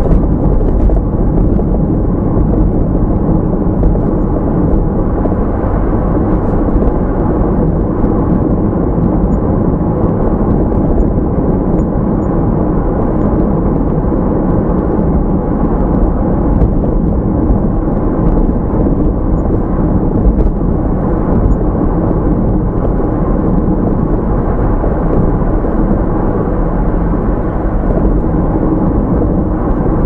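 Car driving: a loud, steady low rumble that holds at the same level without change.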